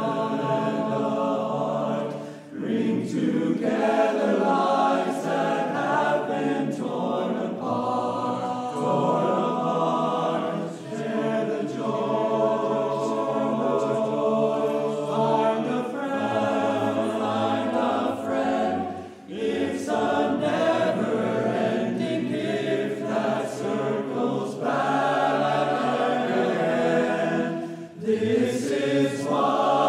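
Men's chorus singing in sustained phrases, with short breaks for breath about two and a half, eleven, nineteen and twenty-eight seconds in.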